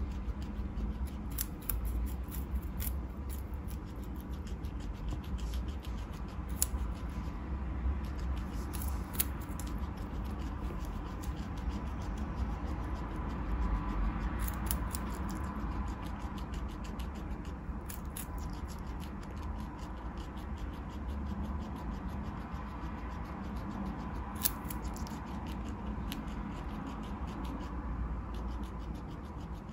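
Guinea pig chewing carrot: a steady run of rapid, crisp crunching and gnawing clicks.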